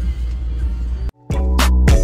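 Music playing over a low steady rumble, cut off abruptly about a second in; after a brief gap a different song starts, with sustained chords and sharp percussive hits.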